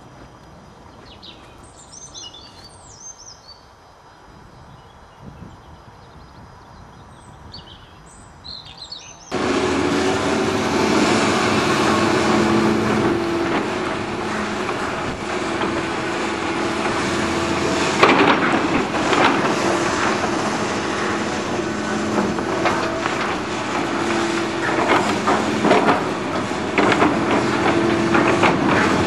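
Birds chirping over quiet outdoor background, then, about nine seconds in, a sudden change to a tracked excavator's diesel engine running loudly, with repeated clattering as its bucket drops dug-out rubbish into steel open railway wagons.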